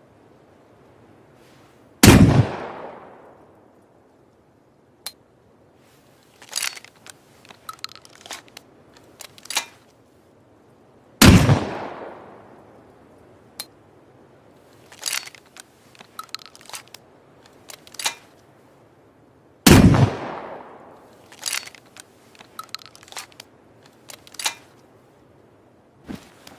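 Waterpipe shotgun fired three times, about eight to nine seconds apart, each shot with a long fading tail. Between the shots come bursts of sharp metallic clicks and clacks from handling the gun.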